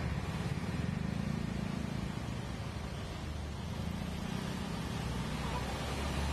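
Traffic on a flooded street: a low, steady engine drone from buses and trucks, with an even hiss over it.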